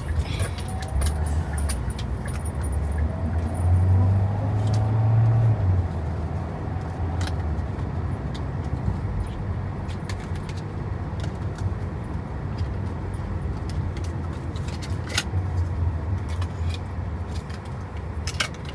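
A squishy's plastic packaging being handled and opened, giving scattered crinkles and clicks over a steady low rumble that swells for a couple of seconds about four seconds in.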